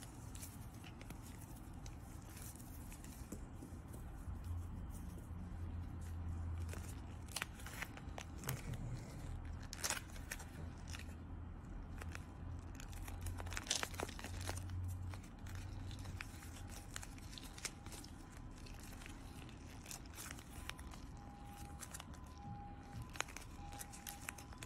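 Hands squeezing and handling gel-bead stress balls and their clear plastic cases: scattered crinkling, crackling and clicking, with a sticker being peeled off near the end.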